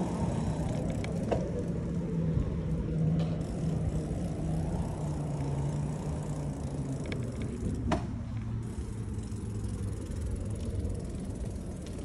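Bicycle riding over city pavement: tyre rumble and wind noise with a steady low hum that drops in pitch about eight seconds in. A couple of sharp knocks cut through, the loudest about eight seconds in.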